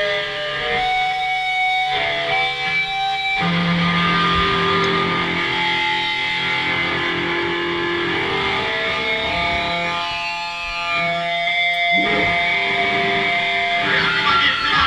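Distorted electric guitar through an amplifier, droning on long held notes that change pitch every few seconds.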